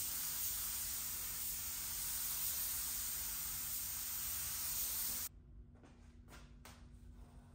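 Gravity-feed paint spray gun hissing steadily as it lays a coat of high-build primer on a bumper, then cutting off suddenly about five seconds in. A few faint knocks follow.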